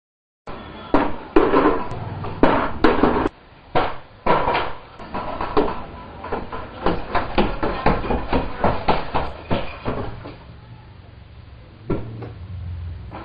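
A rapid, irregular series of sharp knocks and clattering impacts. It starts abruptly about half a second in, picks up to about three knocks a second midway, then thins out, with one last knock near the end.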